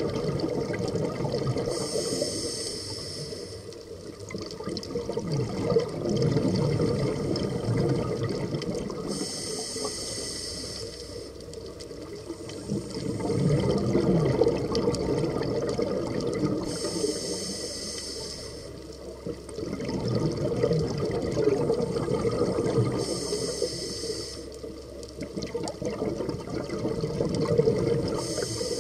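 Scuba diver breathing through a regulator underwater: a short hissing inhale comes five times, roughly every seven seconds, and each is followed by a long gurgle of exhaled bubbles.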